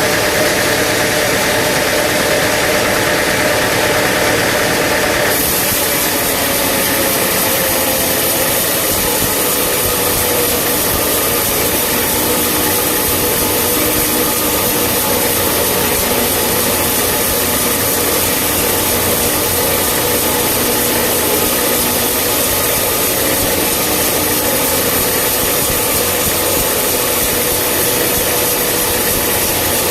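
Sawmill machinery running steadily under a constant engine drone, with a loud, even mechanical noise. The sound changes in character about five seconds in, a higher hiss taking over.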